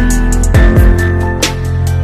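Background music with a beat: deep kick drums that drop in pitch, sharp snare-like hits and held chords.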